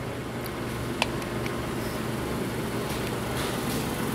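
A metal spoon clinks sharply once against a ceramic plate about a second in, with a few fainter taps and scrapes while it scoops fruit, over a steady room hum.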